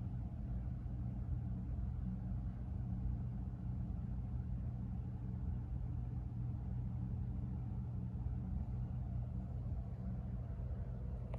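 Steady low rumble with a droning hum underneath, unchanging throughout.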